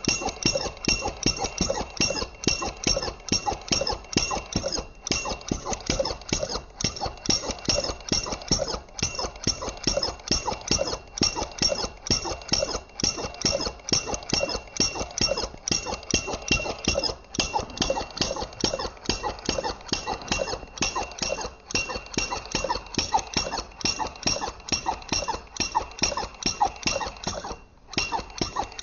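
SH-02 flame gulper (vacuum engine) running steadily, giving a rapid, even run of sharp chuffs and clicks as each stroke gulps the flame in through the intake valve, over a steady high whine. The sound cuts out briefly about a second before the end.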